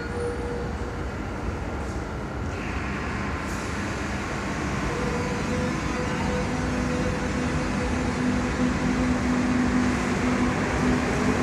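Madrid Metro train at a station platform starting to pull out: a steady rumble that slowly grows louder, with humming motor tones joining about halfway and a rising whine near the end as it gathers speed.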